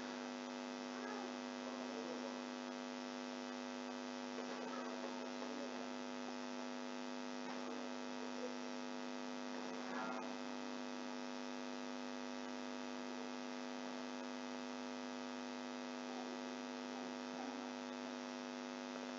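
Steady electrical mains-type hum from the recording setup, a buzzing tone with many overtones. A few faint, brief sounds rise out of it now and then.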